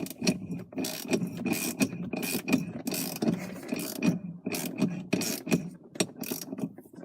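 Socket ratchet wrench clicking in repeated quick strokes, with short pauses, as it tightens the 17 mm bolt that holds the steering-wheel hub adapter on the steering shaft.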